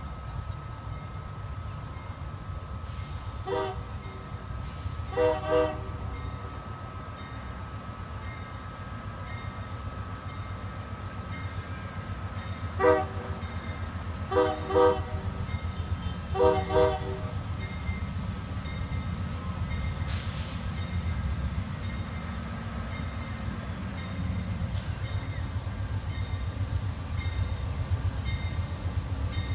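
Amtrak P42DC diesel locomotive sounding its Nathan K5LA air horn in a series of short blasts, single and in quick pairs, as it approaches, over the steady low rumble of the train, which grows a little louder near the end.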